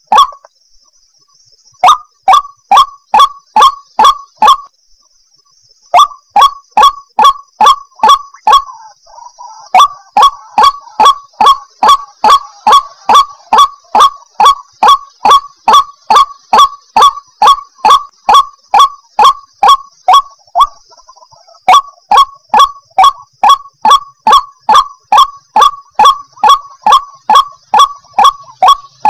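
White-breasted waterhen (ruak-ruak) giving its loud, monotonous repeated call, about three short notes a second, in long bouts broken by brief pauses. This is the lure call that trappers play to draw wild waterhens in.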